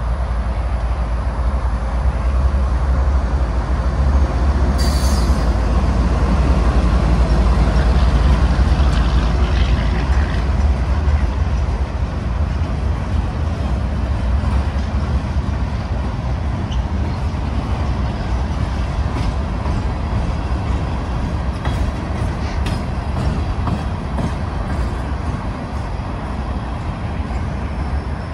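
A CSX GE ES40DC diesel-electric locomotive passing close by with its engine running, loudest about five to ten seconds in, then freight cars rolling past with a steady rumble of wheels on rail. A short hiss about five seconds in.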